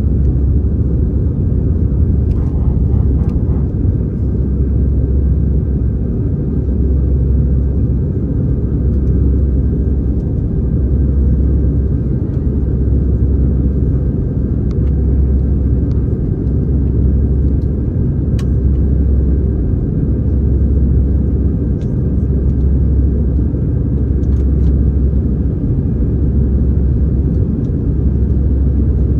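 Airbus A319-111's CFM56 jet engines running, heard inside the cabin as a steady low rumble that swells and fades slowly about every two seconds, with a few faint clicks.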